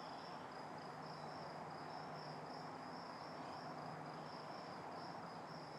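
Crickets chirping in a steady, pulsing rhythm, about two to three chirps a second, with a faint low hum underneath.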